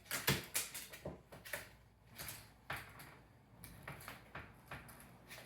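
Irregular clicks, knocks and light clatters as a cockatoo pushes, picks up and moves small objects on a desk.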